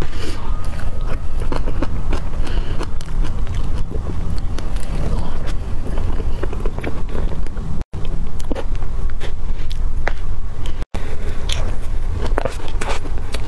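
Close-miked eating of soft cream cake: a steady run of wet, sticky chewing and mouth clicks as spoonfuls of sponge and cream are eaten, over a heavy low rumble. The sound cuts out briefly twice.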